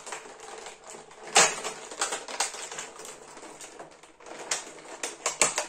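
Clear plastic blister tray of a boxed action figure crinkling and crackling as it is flexed and pulled, with irregular sharp clicks: the loudest about a second and a half in, and a quick run of them near the end.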